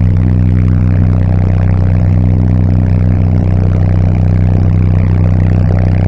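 Car audio subwoofers playing a loud, steady, deep bass tone that holds unbroken.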